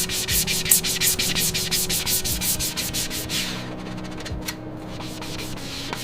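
Rapid, irregular scrubbing strokes, like a brush working over engine parts during degreasing, thinning out after about three and a half seconds. Faint steady background music plays underneath.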